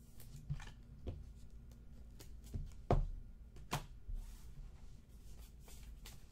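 Trading cards being handled and flipped through by hand, with a faint rustle of card stock and a few short taps as cards are slid and set down, the sharpest about three seconds in.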